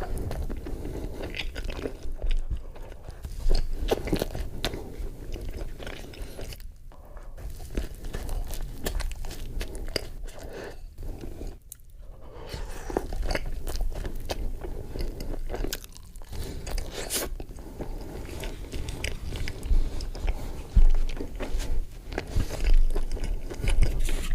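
Close-miked biting and chewing of chilli cheese dogs: a dense run of small clicks and mouth noises, with a few louder bites near the end.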